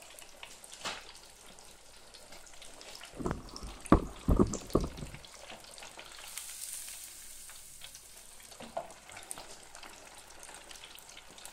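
Beef burgers deep frying in hot oil in a mini deep fat fryer, a steady bubbling sizzle full of small crackles and pops. A few dull knocks sound partway through.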